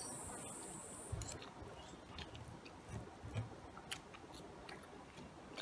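Faint clicks and light scrapes of a metal knife and fork on a plate as fish is cut and eaten, with soft chewing.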